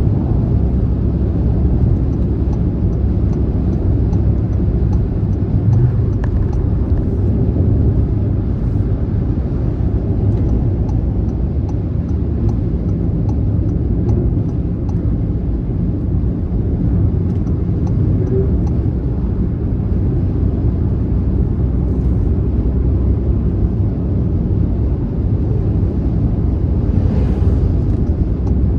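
Car travelling on a highway: a steady, even rumble of road and engine noise, mostly low in pitch.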